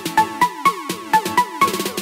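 Electronic background music with a steady beat: short struck notes about four a second, each trailed by a falling low tone.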